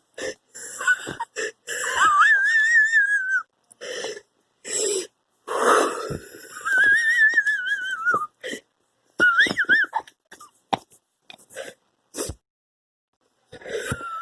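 A person wheezing: breaths in separate bursts with pauses between them, several carrying a high, wavering whistle, two of them drawn out for about a second and a half.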